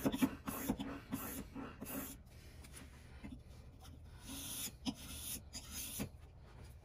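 Steel block-plane blade rubbed back and forth on the 6000-grit face of a combination whetstone: quick rhythmic scraping strokes, loudest in the first two seconds, then a few softer strokes as the blade is worked in a honing guide.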